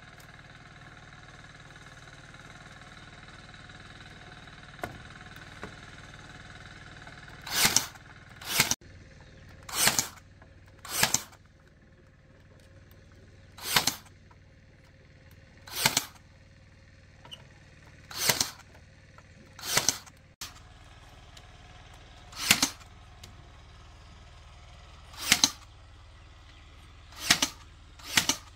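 A hand tool cutting: about a dozen short swishing strokes at uneven gaps of one to three seconds, beginning about eight seconds in. A faint steady background hum comes before them.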